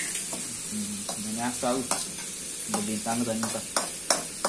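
Steel spoon stirring chopped onions and green chillies frying in an aluminium kadai: a steady sizzle with the spoon scraping and knocking against the pan, the scrapes coming more often near the end.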